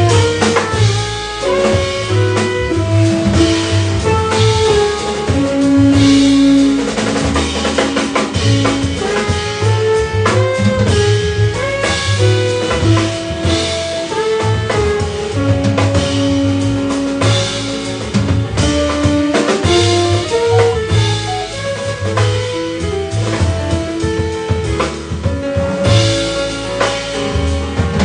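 Live jazz band playing: a saxophone plays a melody of long held notes over grand piano, upright double bass, drum kit and electric guitar.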